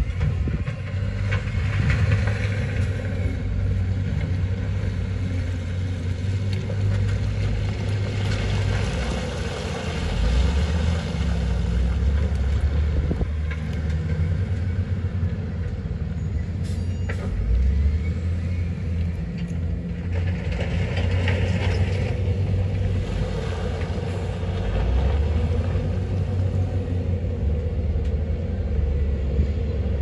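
Heavy diesel engines of a wheel loader and dump trucks working, a steady low rumble whose engine note rises and falls every few seconds as the load changes.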